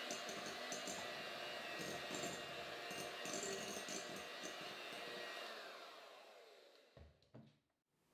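Electric hand mixer running steadily, its twin beaters whipping Italian meringue to a glossy stage in a glass bowl. About five and a half seconds in the motor winds down and stops, followed by two soft knocks.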